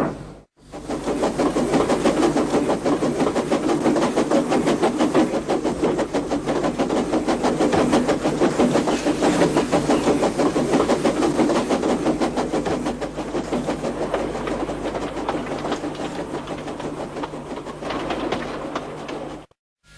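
Steam locomotive sound effect: rapid, even chuffing of an engine running at speed, starting about half a second in, easing a little in level later on and cutting off abruptly just before the end.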